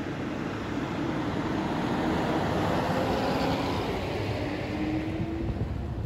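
Vehicle driving along a road: steady road and engine noise with a faint engine hum, swelling slightly in the middle.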